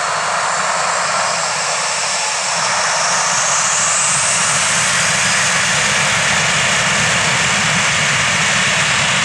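Boeing 737-700's CFM56-7B jet engines running loud and steady at takeoff thrust. About three seconds in, a high whine rises and the sound grows slightly louder.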